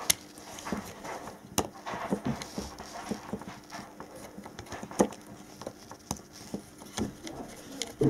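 Irregular sharp plastic clicks and taps, a second or more apart, from a cordless drill's forward/reverse switch being handled and pressed back into place on the drill.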